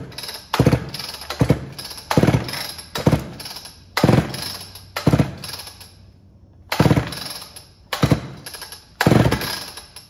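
Homelite Super XL-925 chainsaw cranked by hand with its recoil starter rope, about nine hard pulls roughly a second apart with a short pause near the middle. The engine turns over against high compression without firing, with a compression gauge in the spark plug hole, the reading coming to about 195.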